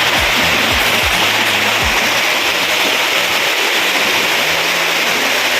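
Waterfall rushing steadily, with background music playing underneath.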